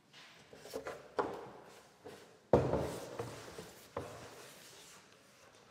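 A wooden beam being handled and swung around: several knocks and thumps of wood, the loudest about two and a half seconds in.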